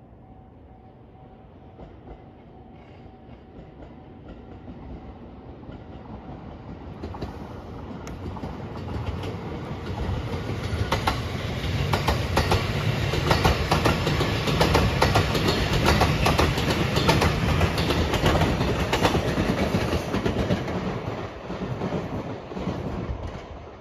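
Rapid Marine Liner electric train approaching and passing at speed. Its wheels clack over the rail joints in quick repeated clicks. The sound grows steadily, is loudest about halfway through, and falls away near the end.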